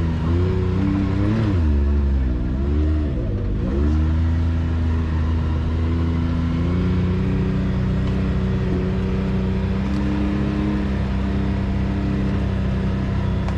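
Side-by-side UTV engine running; the revs rise and dip a few times in the first few seconds, then hold steady.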